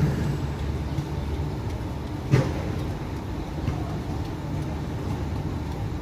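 Steady low outdoor rumble, with a single short knock about two seconds in.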